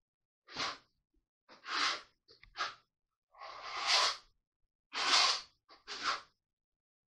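Trowel scraping flooring adhesive across a plywood subfloor in repeated short strokes, roughly one a second.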